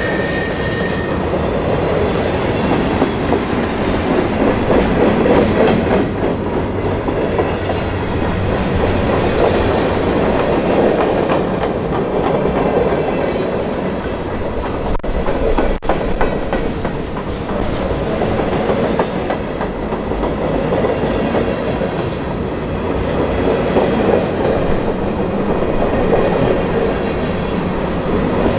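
Freight train cars, centerbeam flatcars and covered hoppers, rolling steadily past: a continuous rumble of steel wheels on the rails with a clickety-clack.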